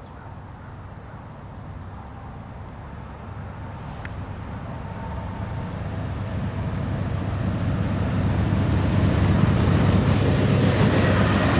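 CSX diesel locomotive hauling a freight train, its engine drone and rumble growing steadily louder as it approaches.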